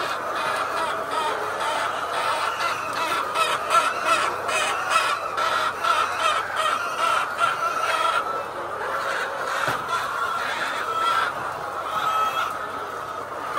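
A large flock of layer chickens clucking and calling together in a dense, continuous chorus, many birds at once.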